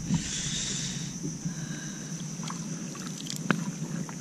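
Water lapping and trickling against a plastic fishing kayak's hull, with a few light clicks, the clearest about three and a half seconds in.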